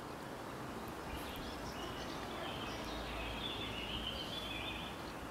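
Outdoor ambience: a steady background hiss with small birds chirping repeatedly, the calls clustered from about a second in until near the end.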